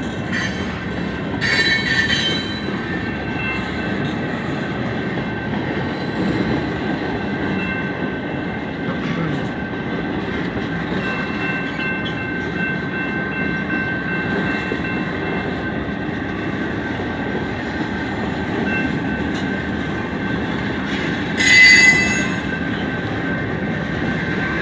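Long train rolling past: a steady rumble of wheels on rail with a thin, high wheel squeal running over it. The wheels screech louder about two seconds in and again near the end.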